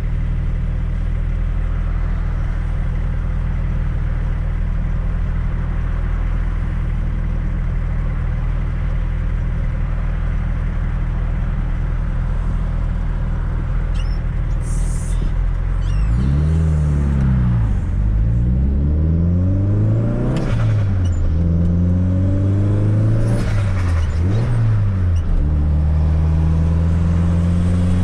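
1995 Fiat Coupe 2.0 16V turbocharged four-cylinder engine and road noise: a steady cruising drone for about the first sixteen seconds, then the engine pitch repeatedly rising and dropping back as the car accelerates through several gear changes.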